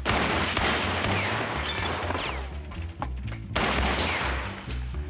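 Gunfire: a sudden volley of shots at the start, then another about three and a half seconds in, each trailing off in a long noisy wash. A music score with a low bass line runs underneath.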